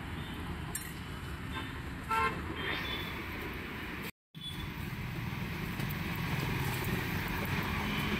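Road traffic running steadily, with one short vehicle horn toot about two seconds in. The sound cuts out completely for a moment about four seconds in.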